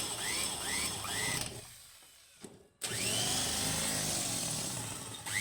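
Power drill running while the van is taken apart, with a repeating rising chirp about three times a second. It stops about one and a half seconds in, then starts again about a second later.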